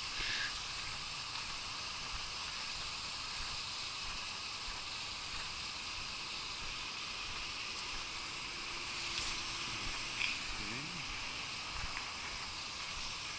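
Steady outdoor background hiss, even and unbroken, with no clear single source.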